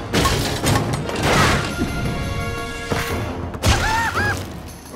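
Cartoon fight soundtrack: fast action music laid over smash and impact effects. About four seconds in, a short high cry of pain rises and falls twice.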